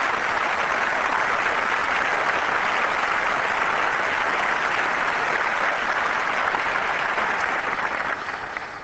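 A large audience applauding steadily, dying away near the end.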